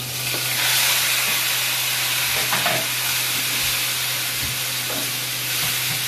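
Diced raw pork tipped into hot oil in a wok, sizzling at once and going on sizzling steadily as it is stirred with a spatula, with a few faint scrapes of the spatula on the pan. A steady low hum runs underneath.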